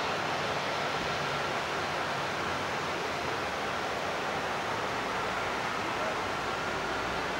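Jet engines of a taxiing Boeing 737 at low thrust: a steady, even roar with a faint high whine running through it.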